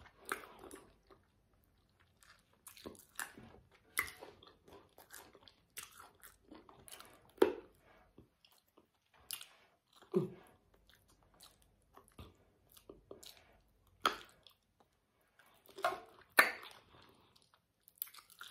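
Close-miked chewing and biting of spicy sauced chicken feet: irregular crunches and wet mouth smacks with short pauses between them.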